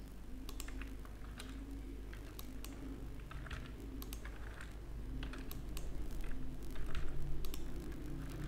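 Computer keyboard keys clicking irregularly as shortcut keys are pressed, a scattering of separate clicks that grows a little louder and busier in the later seconds, over a low steady hum.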